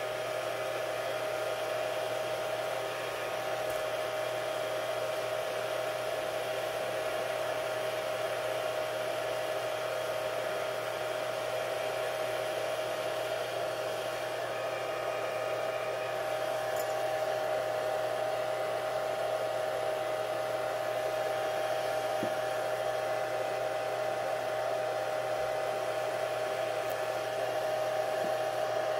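A small electric motor or blower running steadily: a constant whine over an even hiss, unchanging throughout.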